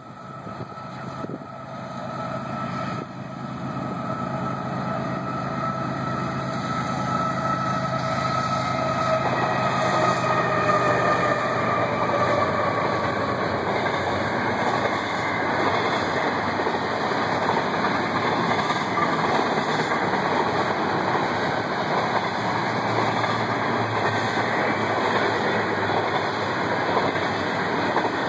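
Freight train approaching and passing: the locomotives grow louder over the first several seconds, with a steady tone that slides down in pitch as they go by. Then comes the steady rolling noise of a string of empty intermodal well cars.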